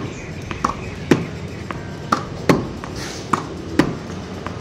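Tennis ball being hit against a wall: racket strikes on hard flat forehands, the ball knocking off the wall and bouncing on the hard court, a string of sharp knocks about two a second.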